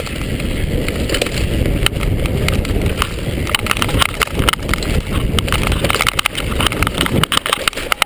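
Mountain bike riding fast over a dirt forest trail: a steady rumble of tyres and wind on the handlebar-camera microphone, with the bike and mount rattling in sharp clicks and knocks over the bumps, busier from a few seconds in. Near the end the rider crashes.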